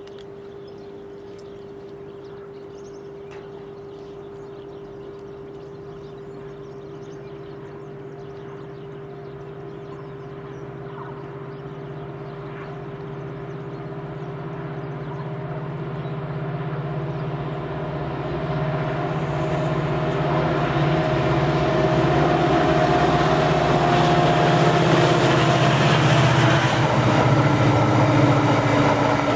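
Diesel-electric freight locomotive, a class 335 Euro4000 with an EMD two-stroke V16 engine, approaching with a train of empty tank wagons. Its low engine drone grows steadily louder over some twenty seconds, then the rolling noise of the tank wagons' wheels on the rails takes over as they pass.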